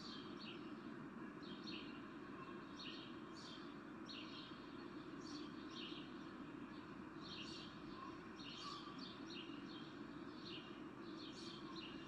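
Small birds chirping in short, irregularly repeated calls over a steady background hiss, like an outdoor park ambience.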